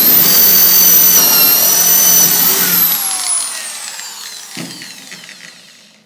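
Hand-held power drill running at full speed as its bit bores a hole through a clamped wooden box lid, a steady high whine. After about three seconds the motor winds down, the whine falling in pitch and fading, with a single light knock near the end.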